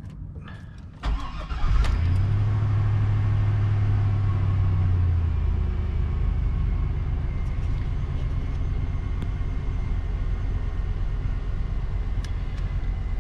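A cold 2002 Chevy Tahoe 5.3L V8 is cranked by the starter and catches within about a second. It runs at a raised fast idle, then settles about five seconds in to a steady idle with no stumbling. A new intake manifold gasket has cured the vacuum leak that made it pop and idle rough when cold.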